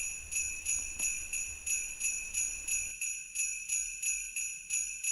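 Sleigh bells jingling in a steady rhythm, about three shakes a second, with a high ringing.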